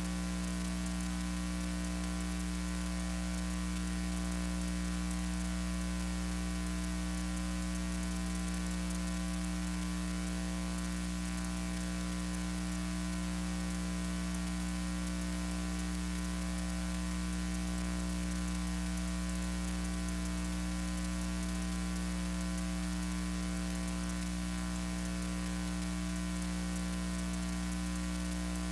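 Steady electrical mains hum with a layer of hiss, unchanging throughout: the noise floor of an archival film transfer that has no recorded sound.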